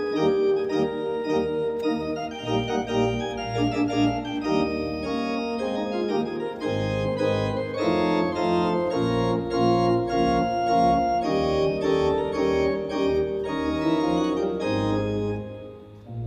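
Allen Historique digital organ playing sustained chords with low bass notes underneath. The playing drops away sharply near the end as the phrase closes.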